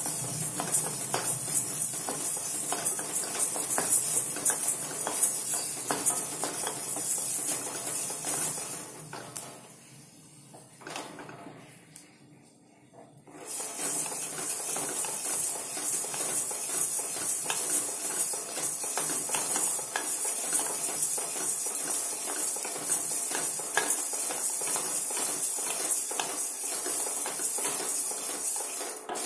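A wooden spatula stirs dry coriander seeds in a stainless steel pan. The seeds rattle and scrape against the metal as they dry-roast on low heat. The stirring pauses for a few seconds about a third of the way through, then carries on.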